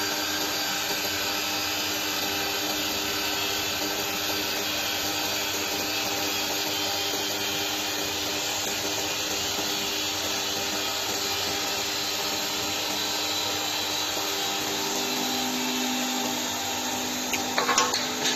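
U-UA5025 mini CNC wood lathe running, its tool shaving a spinning wooden makeup-brush handle: a steady whirring, hissing cut over a motor hum. Near the end a quick burst of sharp clacks as the finished handle is cut off the blank.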